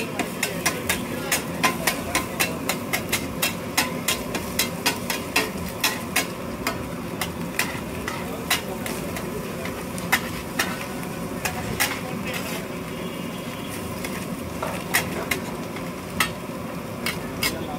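A metal spatula clanking against a hot griddle while food sizzles on it, typical of street-stall frying. The strikes come quickly, about four a second, for the first half, then thin out to a few spaced knocks.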